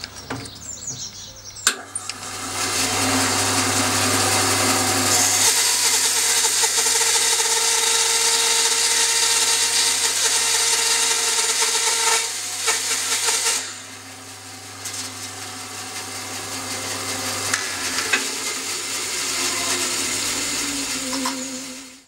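Bandsaw switched on with a click about two seconds in, its motor humming steadily, then the blade cutting through a block of spalted beech: loud sawing noise for about ten seconds, then a quieter cut that slowly grows louder before stopping abruptly at the end.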